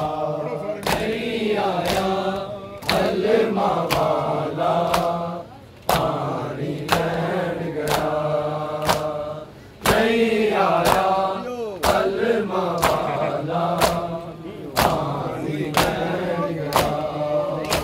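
Crowd of men chanting a Shia noha lament in unison, with sharp slaps of hands on bare chests (matam) landing about once a second to keep the beat. The chanting breaks briefly twice between lines.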